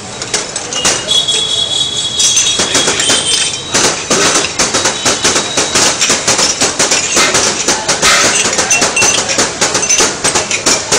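Small glass tea tumblers being set down and shuffled rapidly across a counter: a fast, unbroken clatter of glass knocking on the counter and against other glasses.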